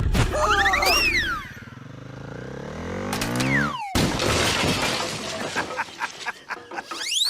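Edited-in sound effects: whistle-like pitch sweeps that rise and fall, then a noisy crackling, shattering stretch about four seconds in, and another rising sweep near the end.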